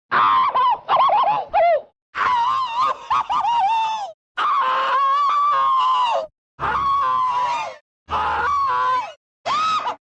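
Cartoon cat screams: a string of separate clips cut back to back with short dead-silent gaps, about six high, wavering yowls and shrieks, some warbling quickly, others held and then falling away.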